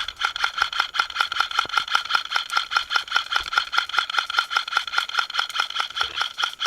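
Airsoft electric gun firing a long full-auto burst: a rapid, even run of about seven or eight shots a second over the steady whine of its motor, starting suddenly.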